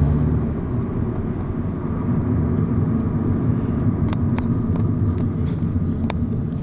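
Steady low rumble of engine and road noise inside a moving car's cabin, with a couple of faint clicks.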